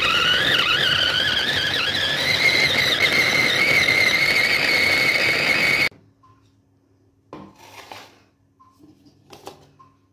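Small electric food chopper's motor whining as it grinds tomatoes and green chillies to a paste. The pitch wavers at first, then settles a little higher, and the motor cuts off suddenly about six seconds in. A few light plastic knocks follow as the chopper is opened and the blade lifted out.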